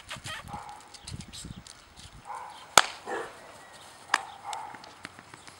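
Scattered small clicks and scrapes of a bulldog puppy's paws moving over loose gravel and stones, with two sharper, louder clicks, one about halfway through and one near three-quarters.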